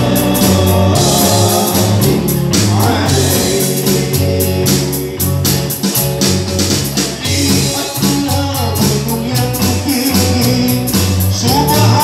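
Live band playing a sholawat, a devotional song in praise of the Prophet Muhammad: electric guitars and an electronic drum kit with steady bass notes and a sung melody, through PA speakers.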